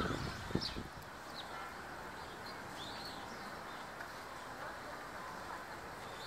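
Eurasian tree sparrows giving short, high chirps every second or so over a steady background hum. A brief low rumble comes at the start.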